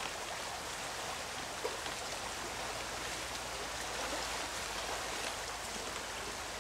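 Shallow, fast riffle of a trout stream rushing steadily over stones, with one brief tick about a second and a half in.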